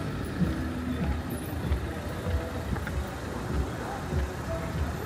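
City street ambience with road traffic passing, faint voices, and a steady low thud of walking footsteps about every half second.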